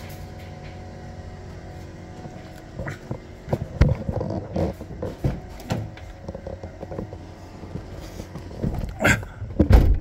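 Toyota Prius 1.5-litre four-cylinder hybrid engine running at about 1100 rpm with a steady hum, joined from about three seconds in by an irregular rattling clatter with several loud knocks, the loudest near the end. The rattle comes from the engine bay with no misfire at that moment; the mechanic ties it to the engine driving motor generator one to charge the battery.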